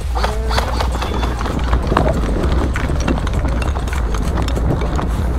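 Running footsteps on dry grass and a dirt path: a quick, even run of footfalls over a steady low rumble.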